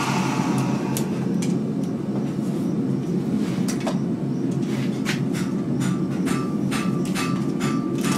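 Belt grinder running with no work on the belt: a steady hum, with light regular ticks, about three a second, in the second half.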